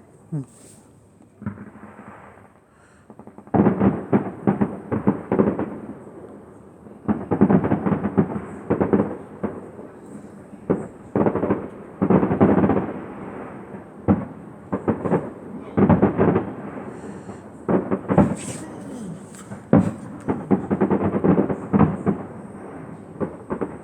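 Fireworks display: a couple of single pops, then from a few seconds in rapid volleys of bangs and crackles coming in dense clusters with brief gaps between them.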